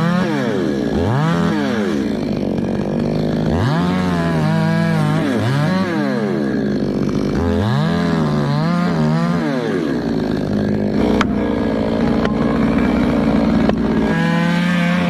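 Chainsaw engine revved up and back down several times in a row, then running at a steady speed for a few seconds before revving again near the end.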